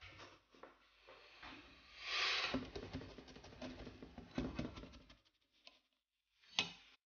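Light scrapes and ticks of a plastic slotted spatula and utensils being handled against a nonstick frying pan as the spatula is worked under the edge of a thin oat pancake, with a longer scrape about two seconds in and a sharp click near the end.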